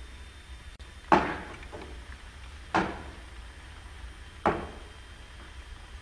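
Three sharp wooden knocks, evenly spaced about a second and a half apart, each with a short ring: a walking cane struck down on a wooden stage floor.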